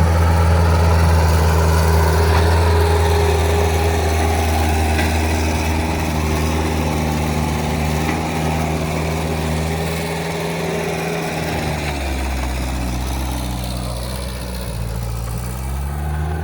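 Bobcat T190 compact track loader's diesel engine running at working speed. About twelve seconds in its pitch drops, then climbs back up near the end.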